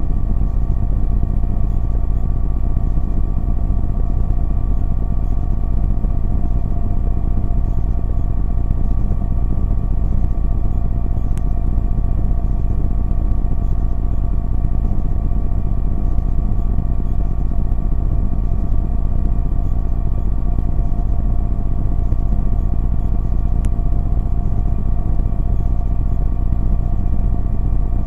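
Steady drone of a Halley Apollo Fox microlight's engine and propeller in flight, heard from inside the cockpit: a deep rumble with several steady tones above it, unchanging throughout.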